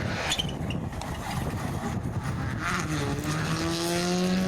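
Rally car engine accelerating hard. After a rough rumble, a clear engine note comes in about three seconds in and climbs steadily in pitch as it gets louder.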